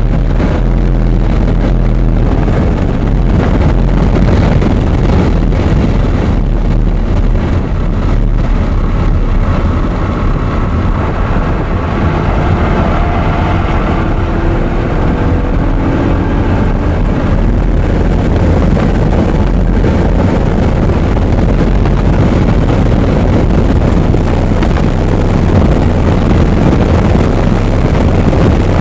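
Audi R8's engine running hard on track, its pitch rising and falling as it accelerates and shifts, over a heavy low rumble of wind and road noise.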